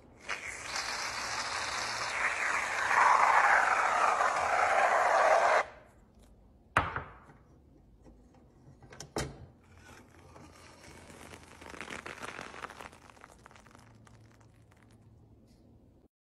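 Whipped cream hissing from an aerosol can into a stainless steel ricer for about five seconds, louder toward the end. Then two sharp metal clacks as the press is shut, and a softer squishing as the cream is forced through the perforated basket.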